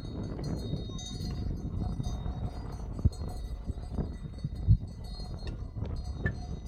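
Livestock bells clinking faintly over a steady low noise, with a few sharp knocks, the loudest about two-thirds of the way in.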